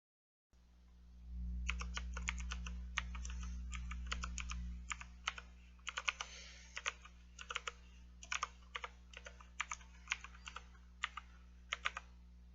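Typing on an AZIO MGK1 mechanical keyboard: irregular, uneven keystrokes, with a low hum under the first few seconds.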